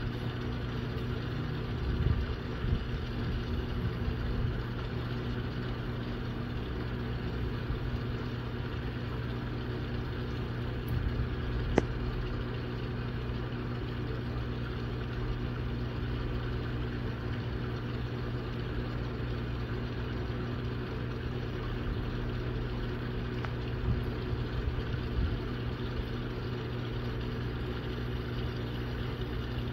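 A motor running at a steady speed: a constant low, even-pitched hum, with one sharp tick about twelve seconds in.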